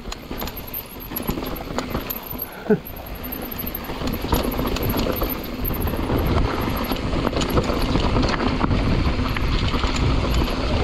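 Mountain bike running down a dirt singletrack: tyre rumble with rattles and clicks from the bike over the rough ground, getting louder as speed builds over the first few seconds, then steady. A short falling squeal about three seconds in.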